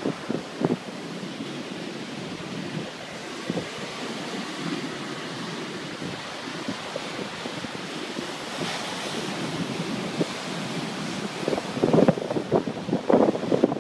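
Stormy sea surging and breaking against a stone sea wall: a steady rush of surf, with wind buffeting the microphone in short bursts that grow louder and more frequent near the end.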